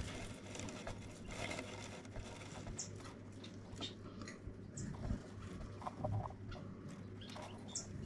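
Light rustling and scratching of dry nest grass as a flashlight is moved among the eggs in a finch nest, over a steady low hum. A few short high chirps sound about three, five and eight seconds in.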